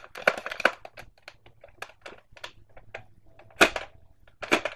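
Plastic toy dart blaster with a red multi-barrel cluster, handled close to the microphone: an irregular run of clicks and rattles, with a louder knock a little past halfway.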